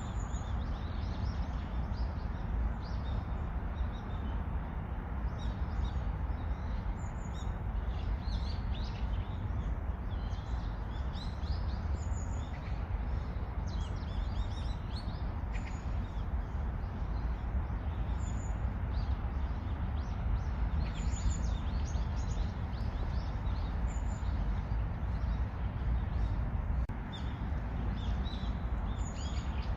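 Many small birds chirping and twittering again and again, short high calls overlapping throughout, over a steady low rumble.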